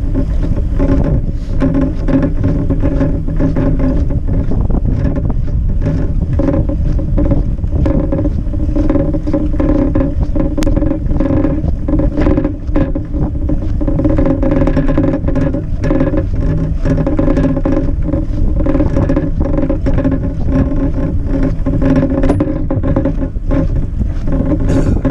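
Wooden-box cargo bike rolling over packed snow, heard from a camera mounted on the bike: a loud, steady rumble with frequent small rattles and knocks, and a steady hum underneath.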